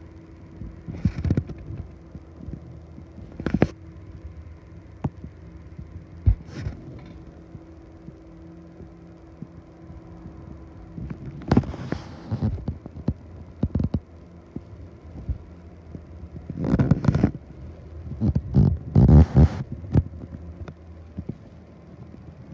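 Handling noise from a handheld phone: scattered low thumps and short rustles as it is moved and gripped, over a faint steady hum that stops about halfway through.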